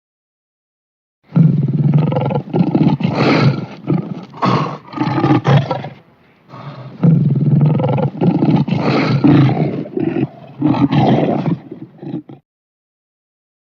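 Lion roaring: two bouts, each a run of repeated heavy roars and grunts lasting about five seconds, with a short pause between them.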